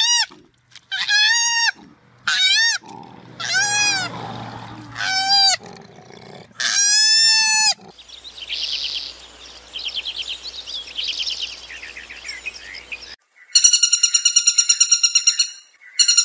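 A run of animal calls: a series of high calls that rise and fall, then a fainter twittering, then two bouts of a fast, pulsing high-pitched call near the end.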